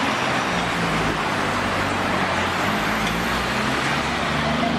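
Road traffic passing close by: a steady rush of tyres and engines, with the low drone of a bus engine growing stronger near the end as it goes past.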